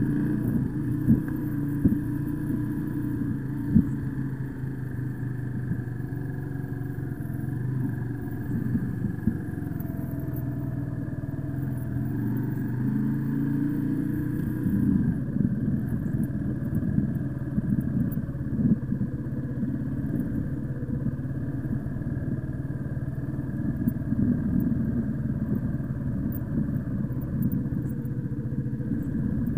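A 125cc motorcycle engine running as it is ridden slowly in first gear, its pitch rising and falling with uneven throttle. A few short knocks sound in the first four seconds.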